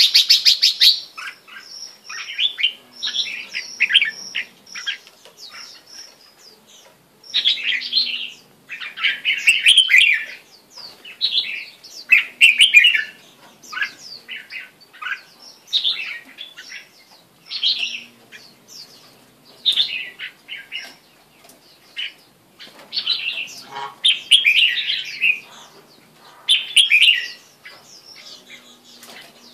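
Caged red-whiskered bulbul singing: short, bright, warbled phrases repeated every second or two, with brief pauses between them.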